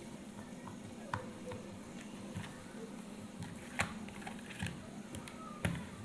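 Faint handling sounds: a few scattered small clicks and taps, like plastic parts of a toy remote controller being handled as its battery cover is closed, over a low steady hiss.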